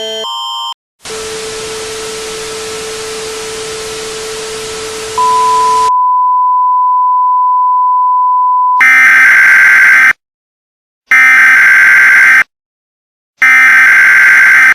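Synthetic Emergency Alert System sounds. A few alternating electronic beeps give way to a hiss of static with a low hum under it, then a steady single-pitched alert tone, then three loud harsh buzzing data bursts about a second apart, in the manner of an EAS header signal.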